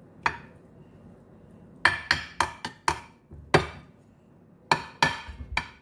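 A metal spoon clinking and knocking against cookware, about a dozen sharp clinks at an irregular pace, most of them from about two seconds in.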